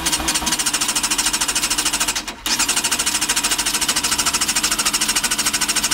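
Yamaha YZF-R6's electric starter cranking the engine over quickly without it catching, in two long runs with a short break about two and a half seconds in. The battery is weak, which the owner takes to be dead.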